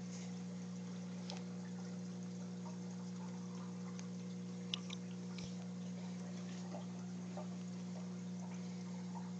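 Aquarium pump humming steadily, with faint water trickling and a couple of small clicks about halfway through.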